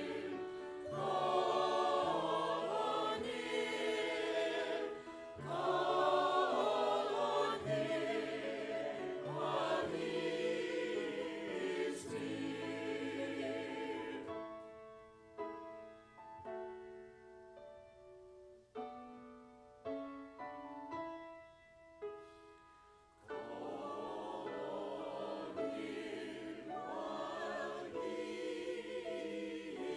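Church choir singing, in parts. About halfway through the voices stop for a quieter instrumental passage of held notes, and the choir comes back in a few seconds before the end.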